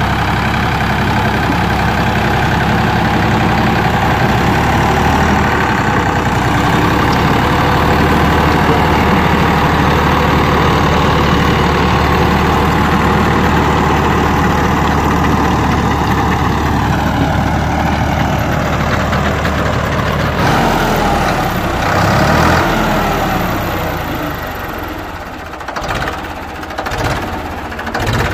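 Ford 3600 tractor's diesel engine running steadily under load, driving a seven-foot rotavator through hard ground. About two-thirds of the way through its pitch falls, and near the end the sound turns quieter and uneven.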